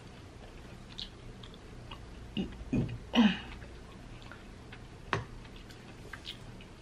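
Close-miked eating sounds of a person chewing fried chicken: small wet clicks and smacks, a few louder mouth noises around the middle, and one sharp click about five seconds in.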